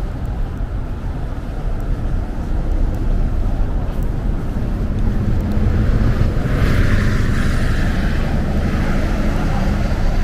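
Steady low rumble of road traffic, with a vehicle passing about six seconds in: its tyre hiss swells and fades away by about nine seconds.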